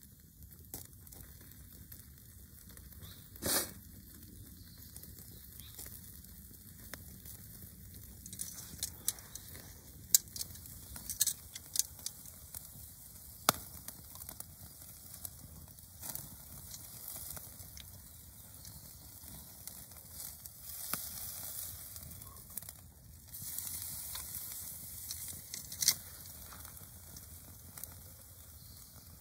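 Wood campfire crackling, with scattered sharp pops, under a steak sizzling on a wire grill. Stretches of hissing come later on.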